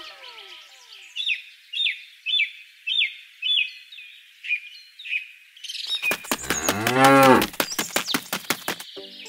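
Cow mooing once, a long low call that rises and falls in pitch, the loudest sound. Before it comes a run of about six short high chirps, roughly two a second.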